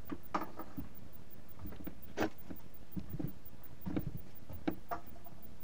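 Scattered soft knocks and rustles of a camera being handled and moved about.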